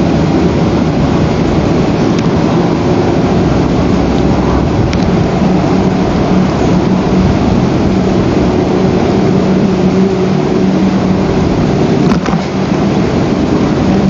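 Loud, steady rushing noise on an outdoor nest camera's microphone, with a low hum under it and a single sharp click about twelve seconds in.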